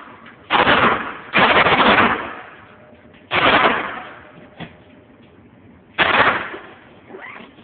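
Gunshots on an indoor shooting range: four loud shots at uneven spacing, two close together in the first second and a half, then one at about three seconds and one at about six. Each shot is followed by a short echoing decay.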